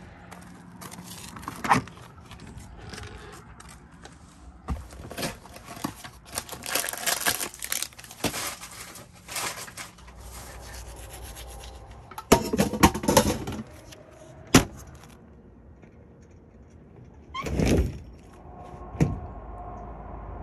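Handling noises from working a pop-up camper shell and its gear: a string of knocks, clicks, rubs and scrapes, with a burst of clattering about two-thirds of the way through and a longer scraping rush near the end.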